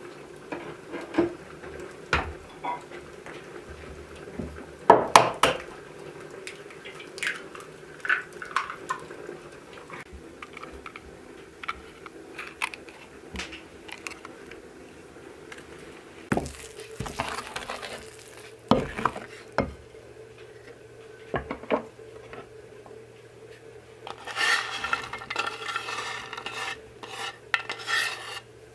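Cake batter being mixed by hand in a glazed earthenware bowl: scattered clinks and knocks of eggs and utensils against the ceramic, and a wooden spoon stirring and scraping through the batter for a few seconds near the end.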